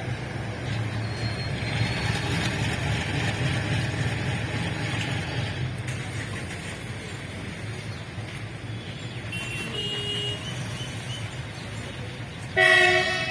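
Vehicle engines rumbling steadily at a railway level crossing, with a single short, loud horn blast near the end.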